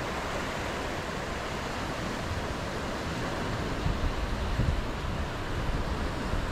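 Small surf washing onto a flat sandy beach at low tide, a steady hiss of waves. Low rumbling on the microphone rises a little past the middle.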